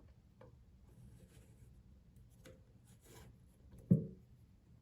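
Faint rubbing and light clicks of a plier turning a faucet cartridge's threaded retaining part, with one dull knock about four seconds in.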